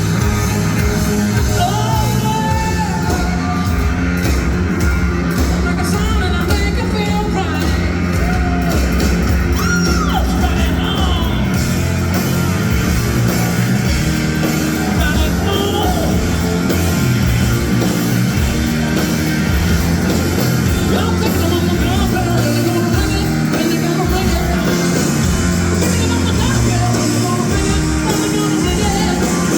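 Loud live rock music: a band playing with a singer's voice over it.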